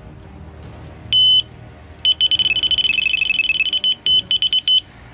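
Electronic carp bite alarm sounding loudly on a run: one high bleep, then after a short pause a rapid, almost unbroken string of bleeps that breaks into separate bleeps near the end. This is the sign of a fish taking line from the rod.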